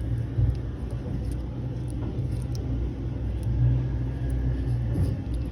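Steady low background rumble and hum, with a few faint light ticks over it.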